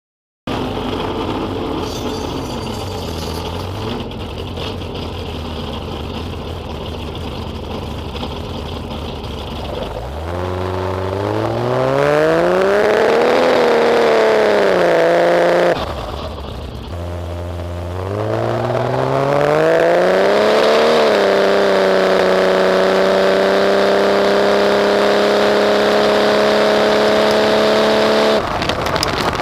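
1JZ straight-six engine of a VH Commodore drag car running, then revving: the pitch climbs steeply, peaks and falls back twice, with abrupt breaks between clips, and finally holds at steady high revs.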